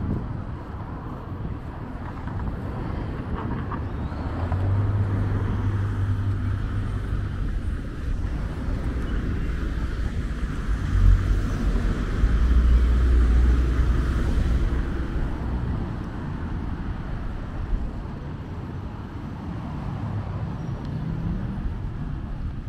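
Road traffic going by on a busy highway: a steady rush of passing cars, with louder, deeper vehicle passes about five seconds in and again about twelve seconds in.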